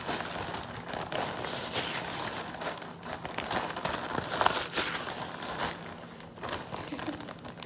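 Clear plastic zip-top bag holding ice crinkling and crackling as it is handled and pressed shut.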